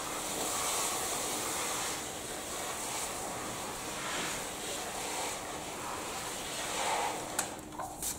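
Garden hose spray nozzle watering small potted plants: a steady hiss of spray that stops near the end, followed by a couple of clicks.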